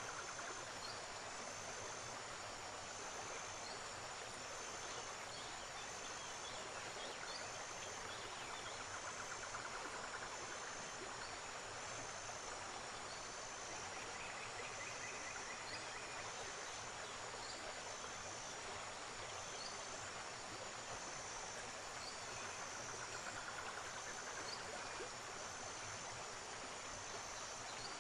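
Steady rush of river water, with a high, thin insect chirp pulsing on and off about every second and a half.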